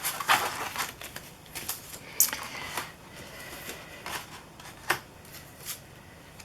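Plastic stencil sheets being handled and shuffled on a table, with light rustling and a scatter of small clicks and taps.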